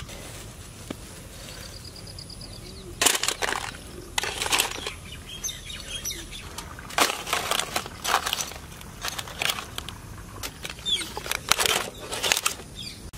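Steel spoon scooping seasoned french fries off a cloth and dropping them into aluminium foil trays: irregular scrapes and rustles, a handful every second or two.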